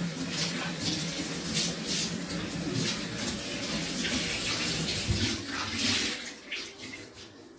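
Kitchen tap running, water splashing as a cloth is wetted under it; the flow stops about six and a half seconds in.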